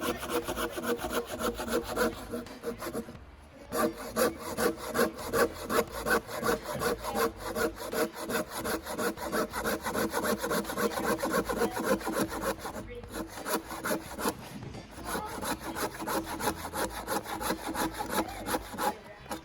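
Hand saw cutting through a piece of firewood in fast back-and-forth strokes, with the blade singing faintly on each stroke. The sawing stops briefly about three seconds in and again around thirteen seconds, then carries on.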